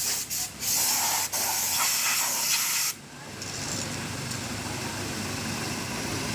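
Bursts of pressurised spray hissing onto the Honda Click's CVT parts during cleaning, stopping and starting a few times before cutting off about three seconds in. After that, a vehicle engine running steadily, growing slowly louder.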